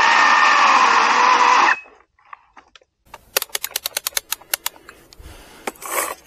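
Badger 40V brushless cordless chainsaw running in a log, its electric motor whine steady, then cutting out abruptly about two seconds in: the saw has stalled and tripped its over-current protection. After a moment of near silence comes a run of rapid, sharp clicks.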